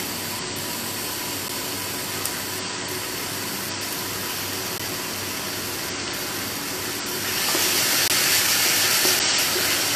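Onions and bell peppers sizzling in a hot pan, a steady frying hiss that grows louder and brighter about seven seconds in.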